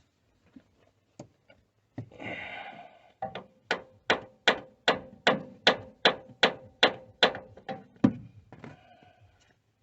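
Hammer striking metal about a dozen times in a steady rhythm, roughly two and a half blows a second, each with a short metallic ring, the last blow the heaviest. A brief scraping sound comes just before the blows start.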